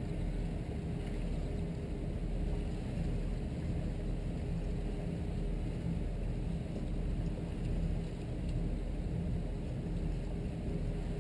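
Steady low rumble of a 1998 Sea Ray 330 Sundancer's engines running at slow speed, with a faint steady hum and an even hiss of water and air over it.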